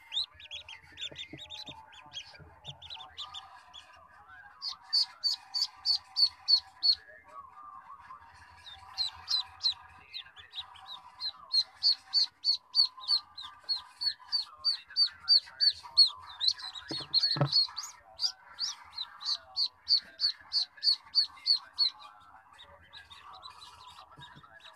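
Newly hatched ducklings peeping in long runs of short, high, evenly spaced calls at about four a second. A single knock sounds about two-thirds of the way through.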